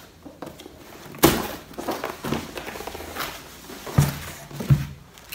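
A cardboard box being opened by hand: scraping and rustling of cardboard with three sharp knocks, one about a second in and two close together near the end.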